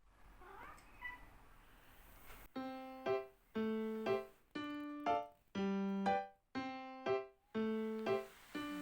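Background keyboard music that starts about two and a half seconds in: a simple repeating pattern of notes, each held note followed by a short higher one, about two notes a second. Before it there is only faint low sound.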